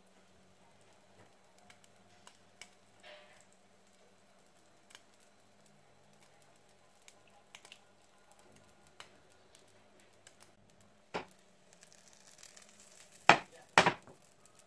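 Kitchen sounds of pancake making: scattered light clicks and taps of a plastic batter jug and utensils, then a sharp knock and, near the end, two loud knocks of cookware close together. Batter sizzles faintly in the hot frying pan.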